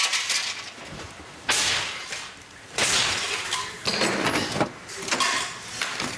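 A series of about five short scraping, clattering handling noises, each starting sharply and dying away, as things are moved about and handled.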